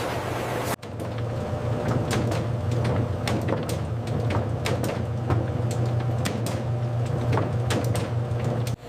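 A machine hums steadily, with many irregular clicks and light knocks over the hum. The sound cuts in sharply about a second in.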